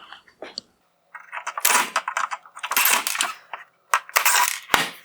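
Rattling, clinking clatter of hard plastic and metal headlight parts being handled, in three bursts of about a second each.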